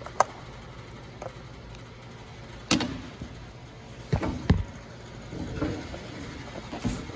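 Hard plastic clicks and knocks as push-button switches and trim pieces are handled and fitted into a truck's dash panel: a handful of sharp taps, the loudest about three seconds in and another pair a little past four seconds.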